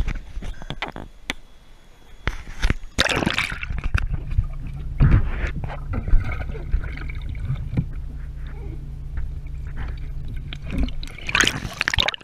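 A waterproof action camera goes under lake water with a splash about three seconds in. It then picks up a steady, muffled low rumble and bubbling while submerged, and there is another splash near the end as it comes back toward the surface.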